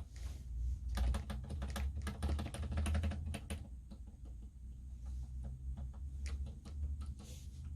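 Typing on a mechanical keyboard with unlubed Zilents v2 67g silent tactile switches, PBT keycaps, an aluminium plate and a plastic Tada68 case. A fast run of keystrokes comes in the first few seconds, followed by slower, sparser keystrokes.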